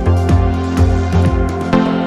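Background music with a steady beat: a deep bass pulse about three times a second under sustained pitched tones.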